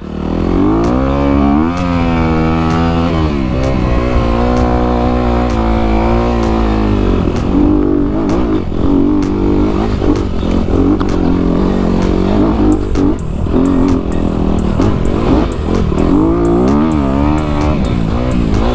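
Honda CRF250 dirt bike's four-stroke single-cylinder engine running under load, revving up and down over and over.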